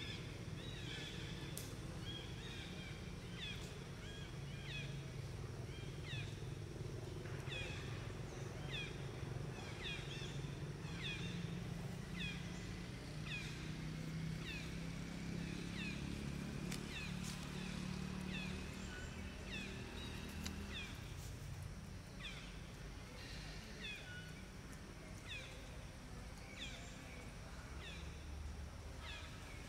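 An animal calling over and over: short, high chirps that fall in pitch, roughly one or two a second, over a steady low hum.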